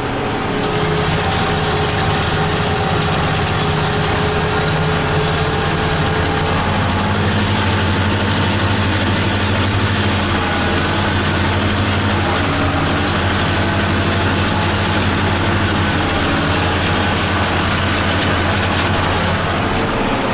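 New Holland 8160 tractor's diesel engine running steadily with the round baler under way, starting a new bale core. The engine note steps up about a second in and rises again about six seconds in as the engine is brought up in speed.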